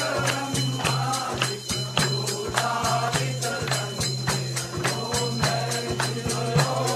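Group of worshippers singing an aarti hymn together and clapping their hands in a steady rhythm, with a steady low hum underneath.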